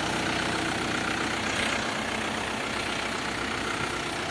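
Iseki TA607 tractor's turbo diesel engine idling steadily, an engine the seller calls still in top condition.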